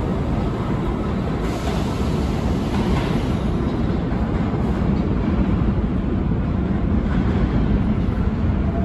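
New York City Subway B train of R68-series cars pulling out of the station into the tunnel: a steady low rumble of wheels on the rails.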